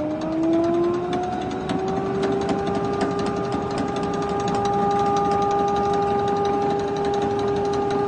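Vintage Hoover upright vacuum cleaner's motor running, a whine that rises in pitch as it comes up to speed over the first couple of seconds, then holds steady.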